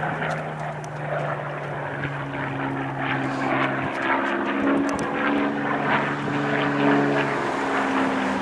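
Propeller-driven Second World War fighter with a Rolls-Royce V12 piston engine flying a display pass overhead, its engine giving a steady drone. The engine note shifts, with higher tones coming in about two seconds in and the lower tone dropping away near the end.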